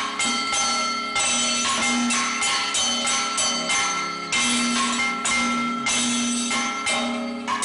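Background music: ringing metal percussion struck about twice a second, its tones ringing on between strokes over a held low tone.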